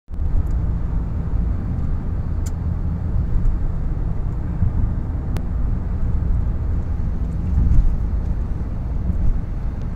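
Steady low rumble of a car's tyre and engine noise heard from inside the cabin while driving, with a couple of faint clicks.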